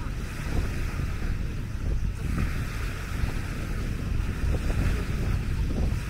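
Wind buffeting the microphone with a low, uneven rumble, over a steady hiss of small waves washing onto a sandy shore.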